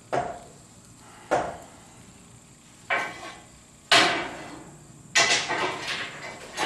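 Exhaust pipes knocked and tapped into place during fitting: four sharp single knocks about a second apart, then a quick run of knocks near the end.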